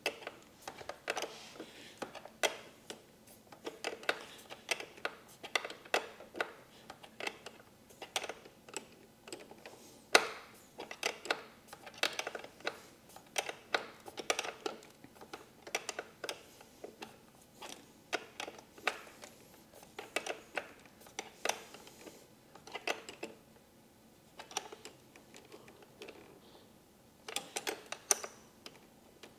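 Small metallic clicks and taps of a 10 mm wrench working a battery terminal bolt tight, several a second in irregular runs, thinning out for a few seconds near the end before a last cluster.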